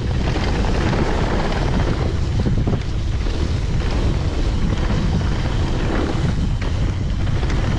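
Wind rushing over the microphone of a camera on a mountain bike riding down a trail, with scattered small knocks from the bike over rough ground.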